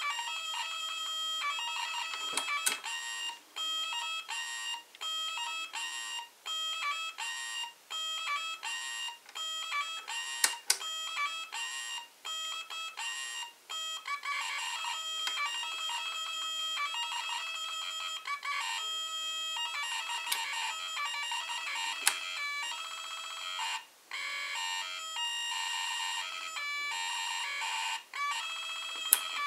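Homemade electronic toy sound box playing a stream of electronic beeps and tone sequences that jump quickly from pitch to pitch, with a few short pauses. A few sharp clicks stand out above the tones.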